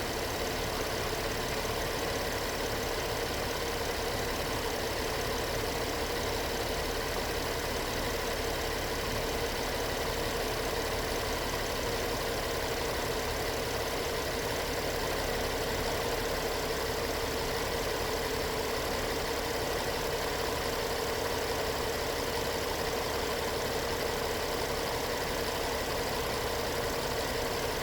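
2012 GMC Terrain's 3.0L V6 engine idling steadily, with a steady whine over it. Its alternator has a failed diode rectifier that is putting AC ripple on the battery.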